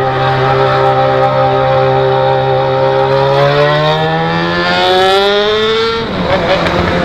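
Yamaha XJ6's 600 cc inline-four running through a straight-pipe 4-into-1 exhaust while riding, holding a steady note that climbs slowly from about halfway through. About six seconds in the smooth note breaks up into a rougher, lower sound.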